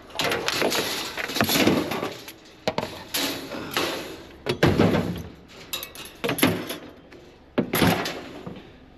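Scrap metal clanking and rattling against a wire-mesh trailer cage as a piece is pushed in through the mesh: a series of sharp knocks and clatters with rattling after them.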